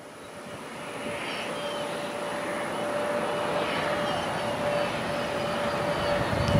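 Turbofan engines of a taxiing twin rear-engined business jet running steadily: a rushing noise with a steady whine, fading in and growing louder as the jet comes close.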